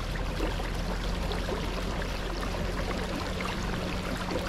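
Water rushing steadily along the hull of a kayak under way, with a steady low hum from its Newport NK300 electric kayak motor running at high power.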